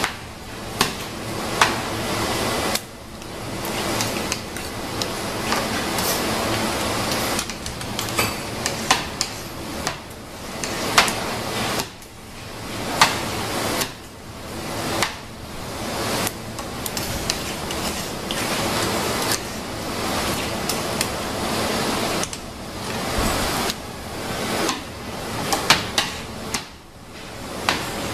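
Metal spatula scooping and spreading kamaboko fish paste into a fish-shaped mould: wet scraping strokes a second or two long, swelling and fading, with frequent sharp clicks and taps of the blade.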